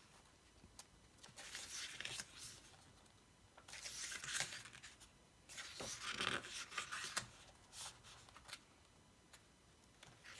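Paper rustling as the pages of a K-pop photobook album are turned and handled, in about four short bursts with quiet gaps between them.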